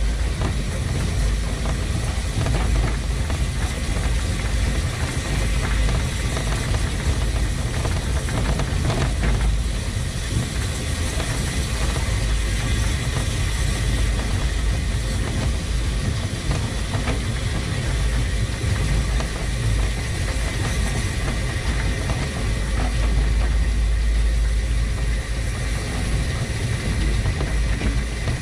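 A 1915 Orenstein & Koppel steam tram locomotive running light along the track, a steady low rumble from its running gear and wheels on the rails, heard from up close on the locomotive itself.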